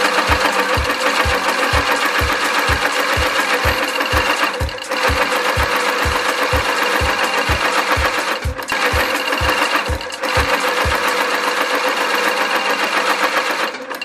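Global SM 7830 AL high-speed outsole stitching machine running, stitching through a shoe sole, with a dense, rapid, even clatter. It eases off briefly three times and stops near the end.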